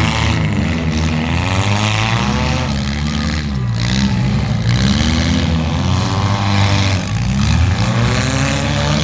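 Demolition derby cars' engines revving hard, the pitch rising and falling over and over as the drivers floor it and back off.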